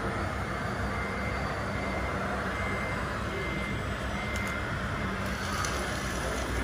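Reversing beeper of an RC construction truck, a short high beep repeating about once a second from about a second in, over a steady low rumble.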